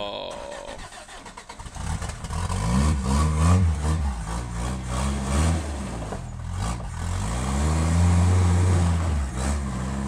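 First-generation Toyota pickup's engine revving up and down repeatedly as the truck crawls over rocks. The revs are low for the first second or so, then rise in several surges, with the longest stretch of high revs near the end.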